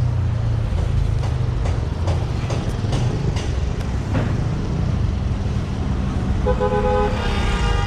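Steady low rumble of road traffic with a few short knocks. A vehicle horn sounds one steady note for just over a second near the end.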